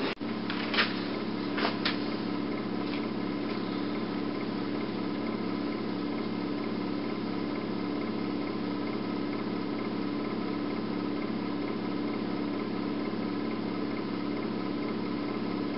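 A steady mechanical hum made of several fixed tones that does not change, with a few light clicks in the first two seconds.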